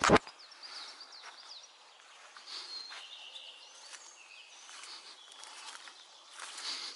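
Woodland ambience: small birds chirping and trilling here and there, with soft footsteps rustling on a leaf-strewn path. A loud knock right at the start.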